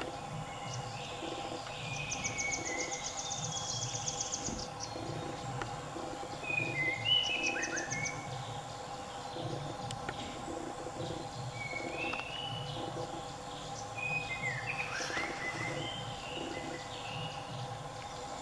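Birds calling: short chirps and whistled notes that slide up and down, with a fast high trill about two seconds in and again around eight seconds. Under them runs a steady drone and a low, regular pulsing.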